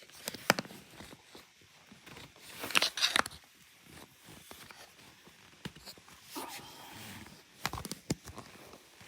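Plastic clicks, knocks and a rustling scrape as a Hoover vacuum's body and latches are handled, fumbling for the release to open it. The scrape, about three seconds in, is the loudest.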